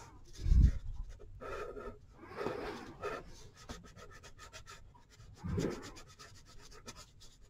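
A pen scratching on paper in quick back-and-forth colouring strokes, with two dull thumps, about half a second in and again near five and a half seconds.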